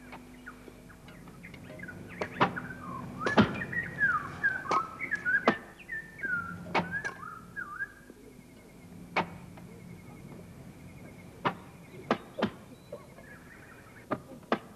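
Birds calling, with quick rising and falling whistled notes that are busiest in the first half. A dozen or so sharp cracks or clicks are scattered throughout.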